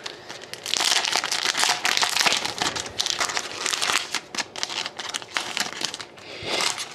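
Crinkling and rustling of a hockey card pack's wrapper being torn open and handled, a dense crackle that runs for about five seconds.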